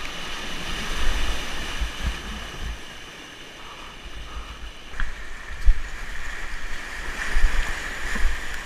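Whitewater rapids rushing around a kayak, heard close up from a camera on the boat, with low buffeting thumps of wind and water on the microphone.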